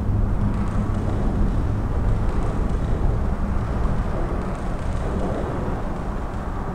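Steady low rumble of road traffic on a concrete viaduct, heard from beneath the deck, with no distinct passing vehicles standing out.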